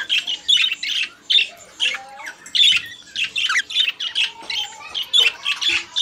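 Budgerigars warbling and chattering: an unbroken run of short, quickly changing chirps and calls, several a second.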